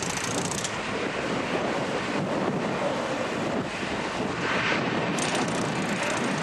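Boeing 737-800's twin CFM56-7B jet engines running at low taxi power, a steady rushing noise with some wind on the microphone.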